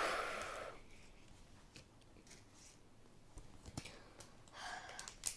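Faint rustling and light clicks of a foil Pokémon card booster pack being handled, with a short rustle at the start and another near the end.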